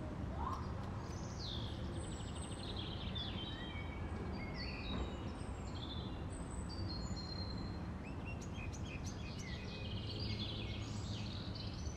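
Several small birds chirping and singing in short, varied high phrases over a steady low rumble of outdoor background noise.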